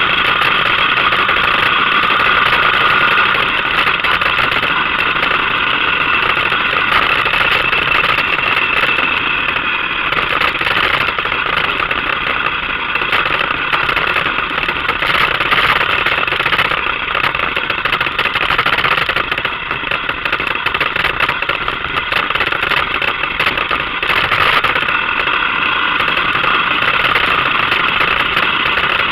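ATV engine running steadily while riding along a gravel trail. Its whine holds a constant pitch, with no revving.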